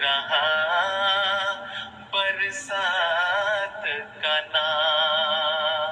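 A solo voice singing a hamd, a devotional poem in praise of God, in long held notes with a wavering vibrato. There are short breaks between phrases.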